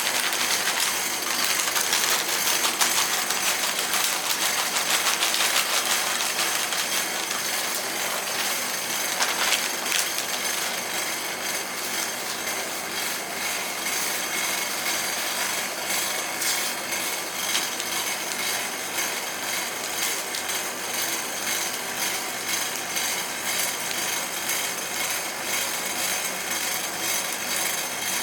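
Metal spatulas chopping and scraping on the steel cold plate of a rolled ice cream counter: a busy, continuous run of quick taps and scrapes.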